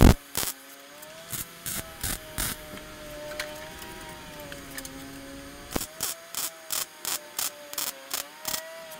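Background music: a sustained, slowly wavering tone over a steady clicking beat, with one sharp, loud burst of noise right at the start.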